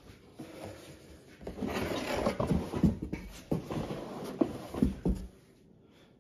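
Rustling and handling of packaging in a shipping box as it is rummaged through, with several sharp knocks, starting about a second and a half in and stopping shortly before the end.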